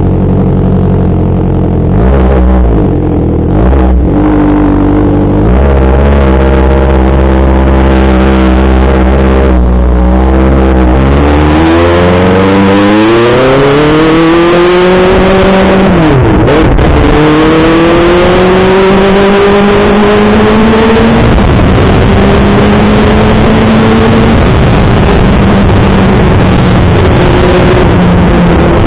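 Kawasaki ZX6R 636's inline-four engine running steadily at low revs, then revving up in a long rising pull from about eleven seconds in. The pitch drops briefly near sixteen seconds, climbs again, and holds fairly steady near the end.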